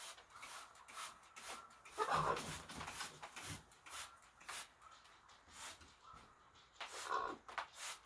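Hand trigger spray bottle misting a blue-and-gold macaw in a dozen or so short, irregularly spaced spritzes. The macaw makes soft calls about two seconds in and again near the end.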